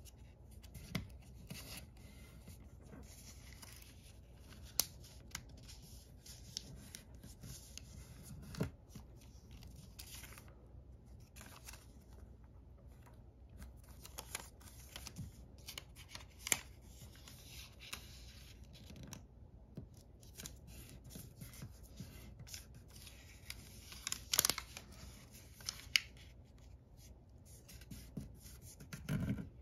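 Origami paper being folded and creased by hand: quiet rustling and crinkling with scattered short, sharp ticks as folds are pressed, a few louder ones near the end.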